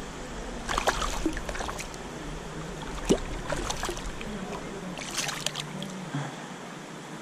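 Water splashing in the shallows of a creek in several short bursts as a hooked rainbow trout thrashes at the bank and a hand grabs at it in the water.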